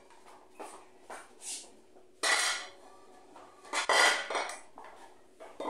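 Metal kitchenware clattering: a stainless-steel ladle and pots knocking together, with two loud ringing clanks, one about two seconds in and one near four seconds.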